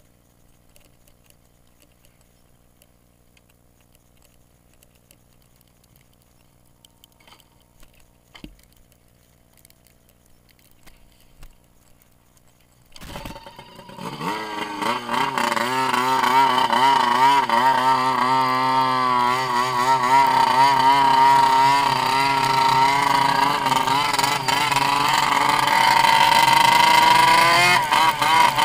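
Turbocharged CFR1200 snowmobile engine. After a quiet stretch with a few faint clicks, it starts up about halfway through, then runs loud under throttle with its pitch rising and falling, climbing again near the end as the sled accelerates.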